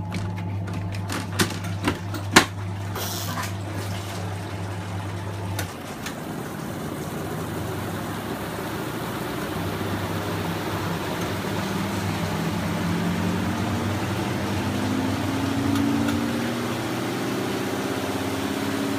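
Polar twin tub washing machine running with its washer and spin dryer going at once: a steady motor hum over sloshing, rushing water, with a few sharp clicks in the first couple of seconds. From about halfway a whine rises in pitch and then levels off as the spinner drum comes up to speed.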